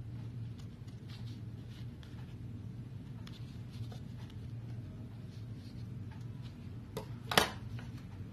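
Scissors making small snips in a piece of pulp-cardboard egg tray: faint, scattered clicks over a low steady hum. Near the end comes a louder knock as the scissors are laid down on the table.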